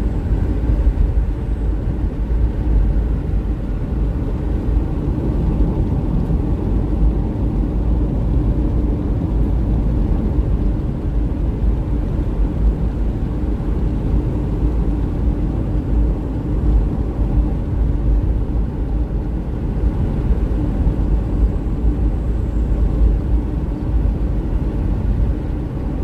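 Steady low rumble of road and engine noise heard from inside a car driving along a paved road.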